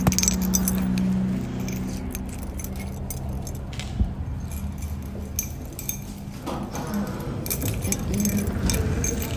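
Clinking, jingling and handling noise as someone walks in through glass entrance doors, with one sharp knock about four seconds in.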